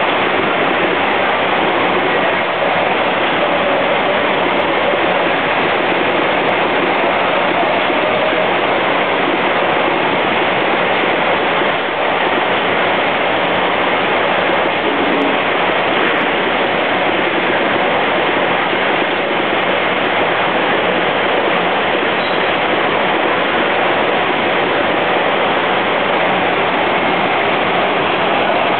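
Eight-head rotary capping machine running steadily, applying flip-top caps: a loud, even machine noise with no distinct beat.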